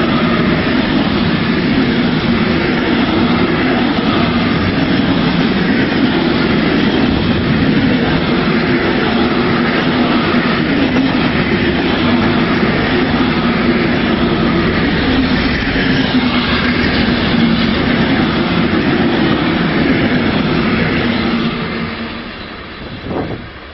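Container freight train's flat wagons rolling past at speed: a steady, loud rumble and rattle of wheels on rails, which fades away as the last wagon passes, about three quarters of the way in. A brief thump comes just before the end.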